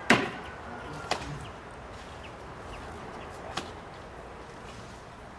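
Three sharp knocks at uneven spacing: the loudest right at the start, another about a second later, and a lighter one about three and a half seconds in, typical of chopping during food preparation.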